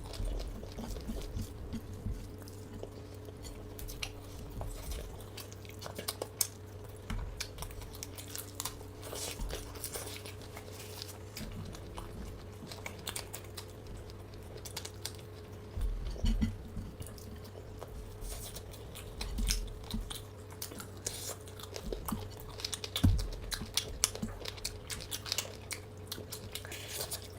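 Close-miked chewing and biting of food: irregular wet crunches and mouth clicks, a few louder near the middle and end, over a steady low hum.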